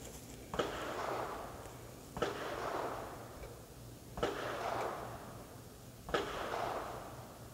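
Four distant rifle shots about two seconds apart, each a sharp crack followed by about a second of fading echo.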